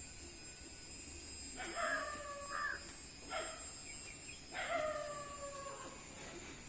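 Small dog whimpering in its sleep while dreaming: three thin, high-pitched whines, two long and one short, the last one falling slightly.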